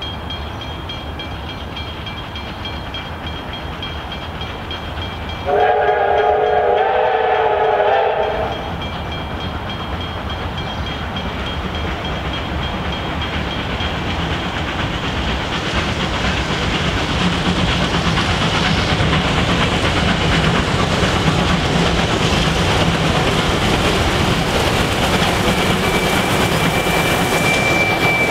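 Two R class Hudson steam locomotives approaching double-headed with a passenger train: a steam whistle sounds a chord for about three seconds, then the sound of the locomotives running grows steadily louder as they draw close.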